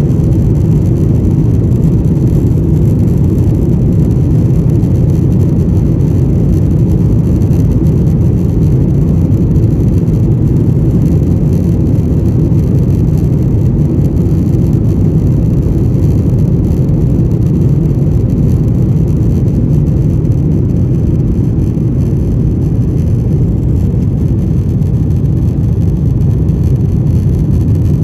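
Steady, loud rumble of a Boeing 737-900ER heard from inside the economy cabin: the CFM56 jet engines and rushing air, low and even throughout.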